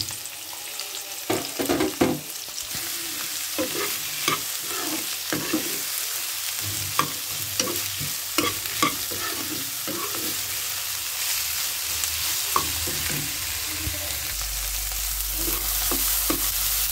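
Sliced onion, tomato and whole spices sizzling in hot oil in a karahi, with a metal ladle scraping and knocking against the pan as they are stirred.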